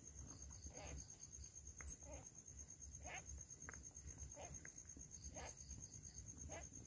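Near silence: a faint steady high-pitched trill, like a cricket. Soft short sounds come every second or so from the mother cat and her newborn kittens.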